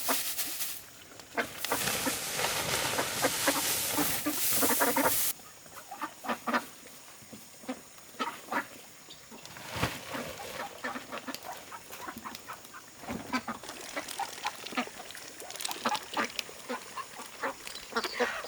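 Domestic ducks quacking in short, scattered calls, with a loud rushing noise in the first five seconds that cuts off suddenly.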